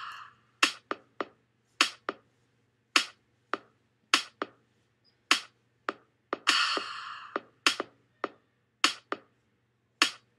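Sparse percussive beat with no bass: sharp clicks come two or three a second in an uneven rhythm, and a longer hissing crash fades out about six seconds in.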